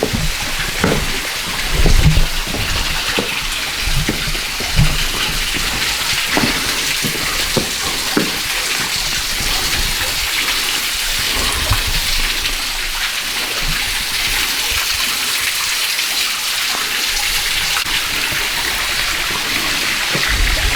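Steady rush of water running and splashing over rock in a canyon stream, with irregular low thumps over the first several seconds.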